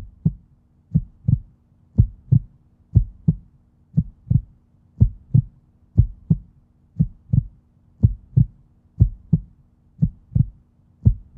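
Heartbeat sound effect: pairs of short low thumps, lub-dub, about one pair a second, over a faint steady low hum.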